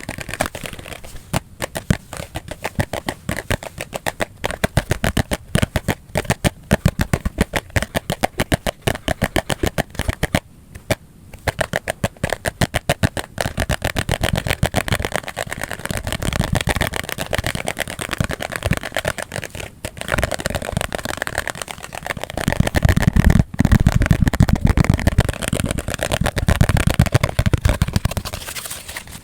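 Very fast, uneven ASMR tapping with the speed boosted, many taps a second. Heavier, deeper thudding taps take over for a few seconds near the end.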